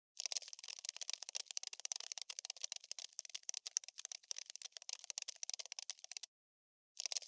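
Scurrying-insect sound effect: a fast, dry, irregular clicking and scratching like many small legs skittering. It cuts to dead silence for about half a second a little after six seconds in, then starts again, as a looped track does.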